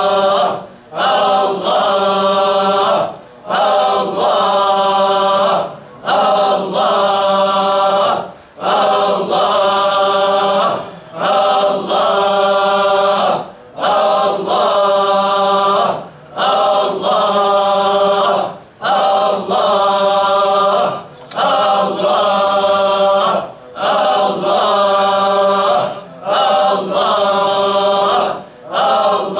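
A group of men chanting the single name 'Allah' together in Sufi dhikr. Each long drawn-out repetition lasts about two and a half seconds, with a short pause for breath between.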